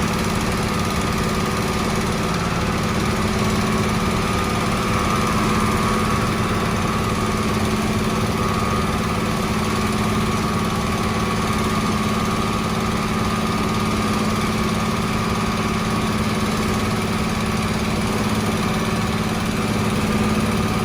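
Engine of road construction machinery running steadily at constant speed, a low hum with a thin higher tone above it and no change in pace.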